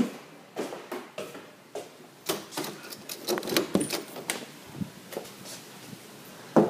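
Irregular light knocks and clicks, about two a second: footsteps on a hard floor mixed with the handling noise of a phone held while walking.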